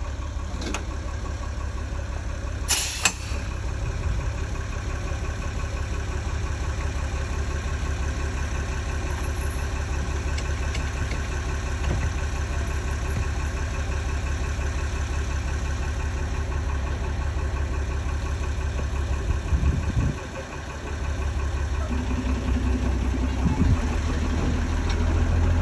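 Miniature railway diesel locomotive's engine idling steadily with a low rumble, broken by a sharp clank about three seconds in. Near the end the engine note rises and gets louder as it is opened up.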